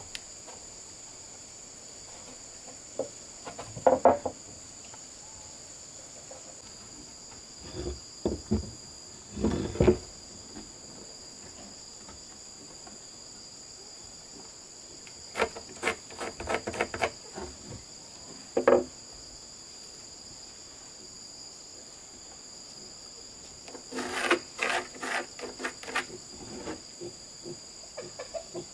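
Steady high chirring of insects, crickets, with clusters of knocks and clatter several times, as of wooden boards being handled and set down.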